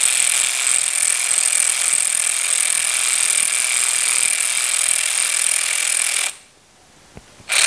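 Power wrench running in one long, steady buzz that stops about six seconds in and starts again right at the end, backing out the bolts that hold a motorcycle's front brake caliper.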